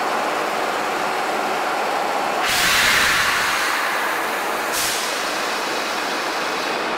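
Compressed air hissing out of the standing Osaka Metro 66 series train's pneumatic system in one loud burst of about two seconds, starting suddenly and cutting off sharply, with a brief second puff just after. Beneath it is the steady noise of the stopped train and the underground platform.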